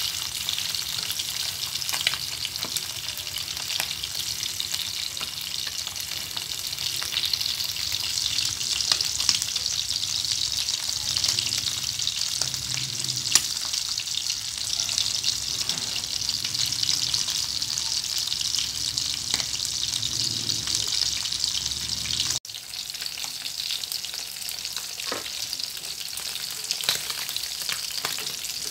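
Dried salted fish (daing) frying in hot oil, a steady sizzle with crackle, and now and then a sharp tap of a metal knife turning the fish against the pan. The sizzle breaks off for an instant about three-quarters of the way through, then carries on.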